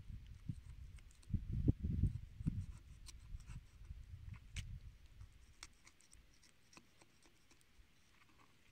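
Kitchen knife cutting and scraping through a raw chicken leg on a wooden cutting board as the meat is worked off the bone, with small scratchy clicks and soft knocks of meat and knife against the board, the knocks mostly in the first two seconds. Quieter after about six seconds.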